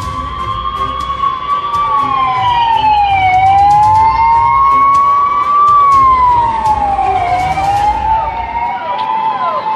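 Emergency vehicle sirens on a convoy passing, a loud wail rising and falling slowly every two to three seconds, with a second siren's short falling yelps joining near the end. A vehicle engine rumbles underneath and fades out near the end.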